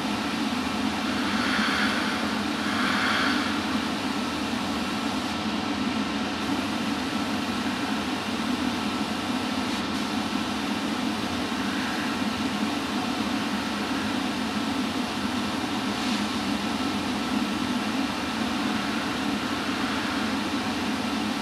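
Air compressor for an airbrush running with a steady hum, while a Harder & Steenbeck Infinity CR Plus airbrush gives short hisses of spraying air, two louder ones about two and three seconds in and fainter ones later, laying down pre-shading.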